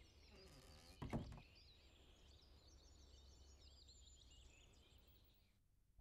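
Faint birdsong ambience of small chirps, with a single dull thump about a second in. The sound fades out near the end.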